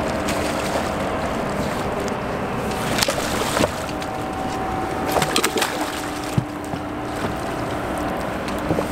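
A hooked redfish thrashing and splashing at the surface beside a small boat as it is brought to hand. There are sharp splashes about three seconds in and again around five seconds, over a steady wash of water noise and a faint steady hum.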